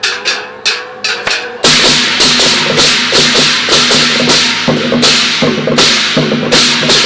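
Traditional temple-procession percussion of drums, gongs and cymbals beating in a steady rhythm. Sharp strikes at first; about a second and a half in, a much louder full ensemble comes in at about two to three strokes a second.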